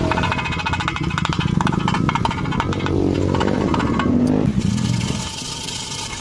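Stick (MMA) welding arc crackling densely over a steady low hum; the crackle changes to a more even hiss about four and a half seconds in.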